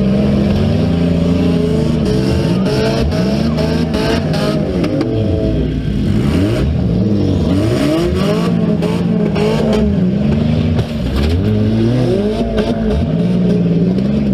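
Several car engines revving up and down at once, their pitches rising and falling over one another, as derby cars accelerate and back up in a demolition derby. Scattered sharp knocks sound in the first half.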